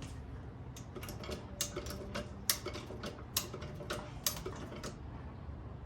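Lug wrench working on a car wheel's lug nuts as they are loosened: a string of irregular sharp metal clicks and clinks, some with a short ring, from about a second in until near the end.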